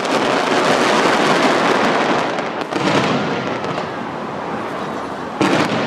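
Dense, continuous crackling and popping of many fireworks fired at once from the sides of a skyscraper, heard from close below. It rises in fresh surges about three seconds in and again near the end.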